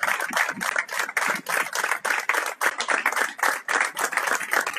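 A small group of people applauding, with many overlapping hand claps.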